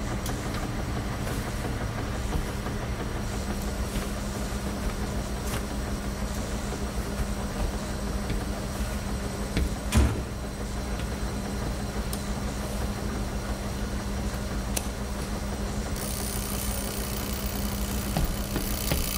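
Laundromat machines running: a steady mechanical hum of front-loading washers, with one sharp knock about halfway through.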